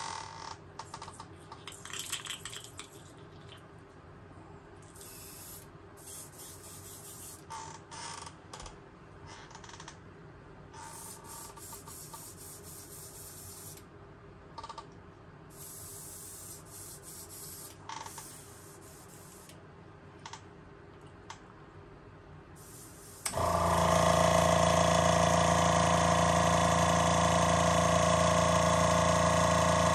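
An airbrush hissing in repeated short bursts, with small clicks and taps between them. About 23 seconds in, a much louder steady motor whir with a hum starts and runs for about seven seconds.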